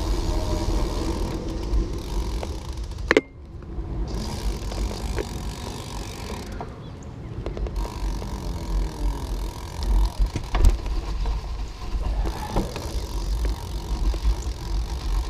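A bicycle being ridden on pavement: wind rumbling over a handlebar-mounted camera's microphone, with tyre and road noise. There are a couple of sharp knocks, the loudest about three seconds in and another around ten seconds.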